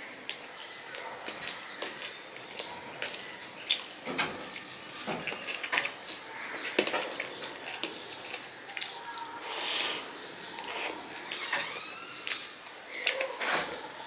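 Close-miked eating sounds: chewing and wet lip smacks of hand-mixed rice and mashed vegetables, with fingers squelching the rice against a steel plate, a string of irregular clicks and smacks.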